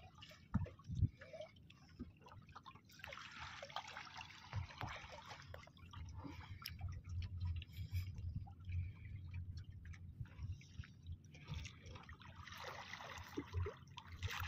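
Seawater sloshing and trickling against a small fishing boat's side, with stretches of splashing and dripping and a few low knocks near the start.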